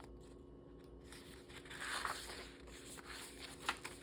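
Pages of a handmade paper-and-fabric junk journal being handled and turned: a soft paper rustle about halfway through and a light tap near the end, over a faint steady hum.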